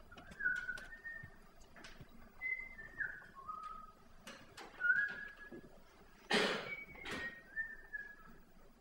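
Quiet whistling: a slow run of short, high notes that step up and down in pitch, with scattered soft clicks and two loud breathy hisses a little after six and seven seconds in.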